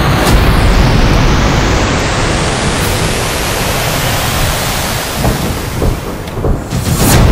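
Sound-effects track of a sci-fi battle: a loud rushing roar with deep rumble that sweeps upward in pitch over the first three seconds, then holds steady. It dips briefly and ends in a sharp impact about seven seconds in.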